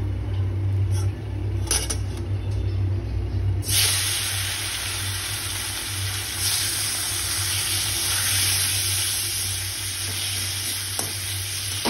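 Raw chicken pieces go into hot oil in a wok and start sizzling suddenly about four seconds in, a dense frying hiss that carries on as they are stirred. Before that there is only a low steady hum and a few faint clicks.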